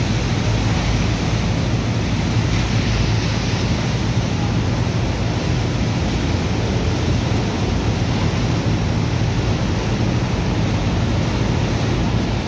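A water jet from a hose blasting into wet sand, a steady rushing hiss of water, with a steady low hum of pumping machinery beneath. The sand is being washed into a slurry so it can be sucked out of the barge.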